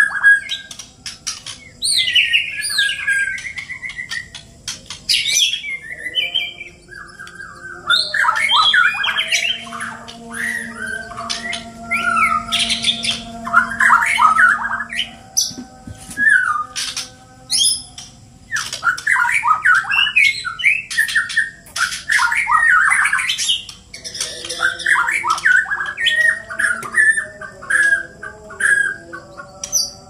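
White-rumped shamas (murai batu) in a song duel, pouring out rapid, varied whistled phrases and pitch glides mixed with sharp clicking notes, with a brief lull about a quarter of the way in.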